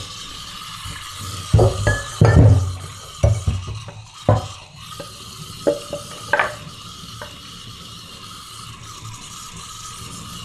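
Kitchen clatter from a wooden cutting board and utensils being knocked and set down, several sharp knocks in the first seven seconds, the loudest about two seconds in. Under it runs a steady hiss of oil still sizzling in the hot wok.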